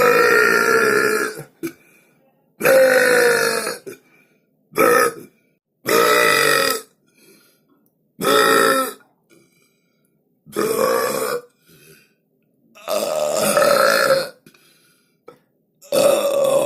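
A person belching over and over: about seven loud, deep burps, each lasting up to a second or so, with short pauses between, the last starting near the end.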